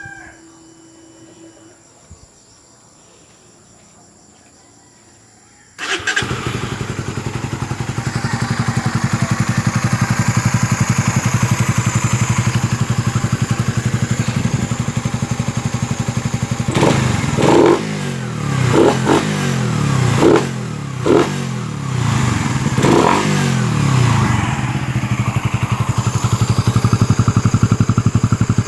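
Suzuki Raider 150 Fi motorcycle engine, fitted with an aftermarket big exhaust elbow (header pipe), starting up about six seconds in and idling. It gets a handful of quick throttle blips about two-thirds of the way through, then settles back to a steady run.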